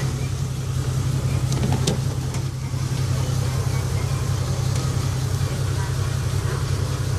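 A steady low mechanical hum, with a few light clicks or knocks about one and a half to two seconds in.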